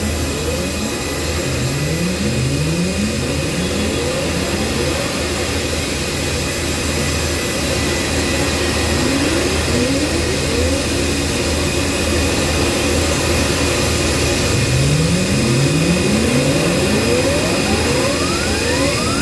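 Electronic noise music played live on cabled electronics: a dense, steady hiss over a low hum, with short rising sweeps that repeat in quick series low down, grouped near the start, in the middle and near the end, where the sweeps climb higher.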